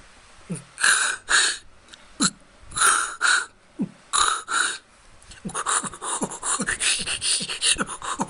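Human beatbox radio-tuning (filter) effect. A short, low, falling 808 bass note is followed by an inward and then an outward hissing breath through the mouth, and the pattern repeats three times. From about five seconds in it runs faster as a continuous string of bass drops and breaths.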